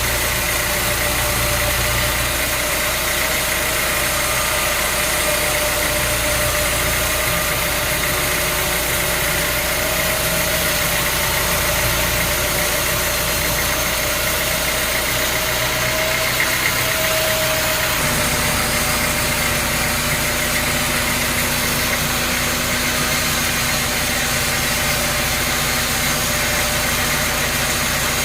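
Sawmill machinery running steadily, an engine-like drone under a constant whine. The low hum shifts to a different pitch about eighteen seconds in.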